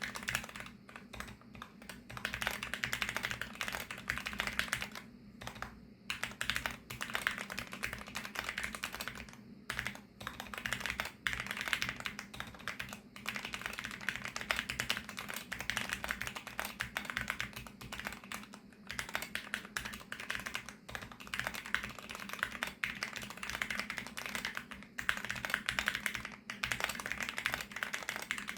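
Fast continuous typing on a VARO V68+ mechanical keyboard with factory-lubricated VARO Panda linear switches, a dense run of keystroke clacks broken by a few brief pauses.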